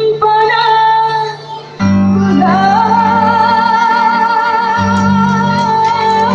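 A woman singing long, slightly wavering notes through a microphone and PA speakers, over electronic keyboard accompaniment. The music drops briefly about one and a half seconds in, then the keyboard's low notes come back in under the singing.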